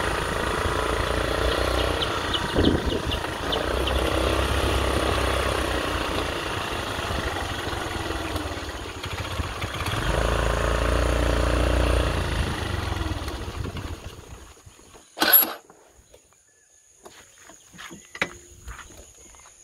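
Small motorcycle engine running as the bike rides along a rough dirt track, its note rising and falling with the throttle. About fourteen seconds in the engine dies away, there is one sharp knock, and then light rustling and steps through brush.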